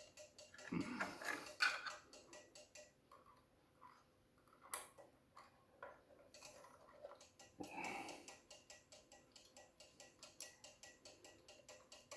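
Cuckoo clock movement ticking in a fast, even rhythm, with two louder rustling handling sounds, about a second in and near eight seconds.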